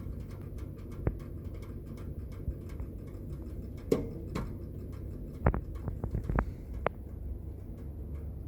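Scattered small clicks and taps of tools and parts being handled at a soldering bench, a few irregular ticks with a cluster in the middle, over a low steady hum.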